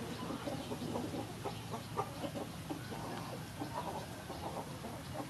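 Chickens clucking in short, scattered, irregular calls.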